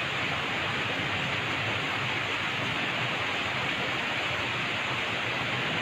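Steady, even rush of water, with no separate drops, splashes or knocks standing out.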